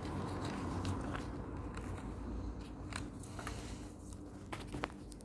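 A sheet of white paper being folded and creased by hand: scattered crinkles and short, sharp crackles as the paper is bent and pressed flat.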